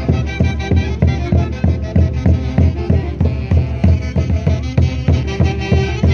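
Andean folk orchestra playing a dance tune over a steady, fast, regular beat.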